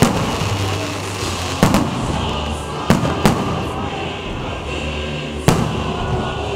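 Aerial firework shells bursting with about six sharp bangs at uneven intervals, two of them in quick succession, over music playing with steady low notes.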